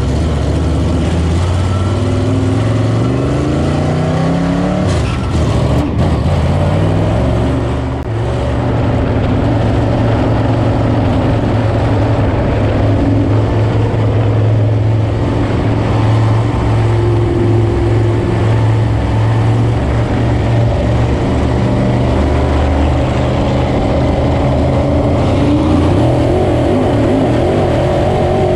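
A 602 Sportsman dirt-track car's V8 crate engine heard from inside the cockpit. It revs up with a rising pitch over the first few seconds, lets off briefly about eight seconds in, then runs hard and steady at high revs.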